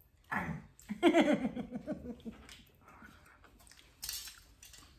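Foil wrappers of chocolate coins crinkling as they are handled, strongest near the end, with a short high-pitched vocal whine or hum about a second in that is the loudest sound.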